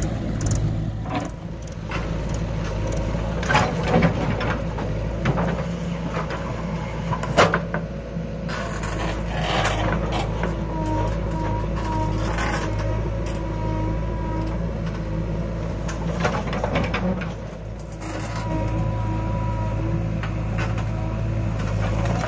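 Diesel engines of a Swaraj 744 FE tractor and a JCB backhoe loader running steadily, with a wavering whine coming and going as the backhoe works. Several sharp knocks in the first half, from soil and stones dropping into the steel trolley.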